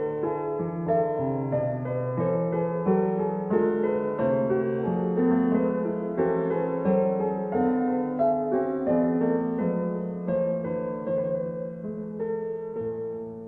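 Background piano music, a gentle melody of steady, changing notes.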